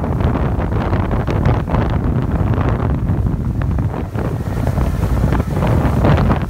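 Wind buffeting the microphone aboard a Boston Whaler Montauk 19 centre-console motorboat underway, over the steady run of its motor and water rushing past the hull.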